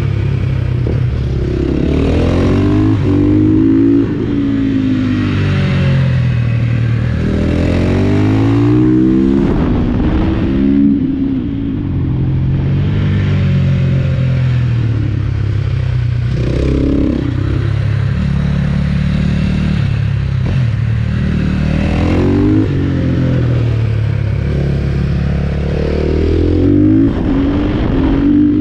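Supermoto motorcycle engine heard from on board, running hard around a track: its pitch climbs and drops again and again as the rider accelerates through the gears and slows for corners, over a steady rush of noise.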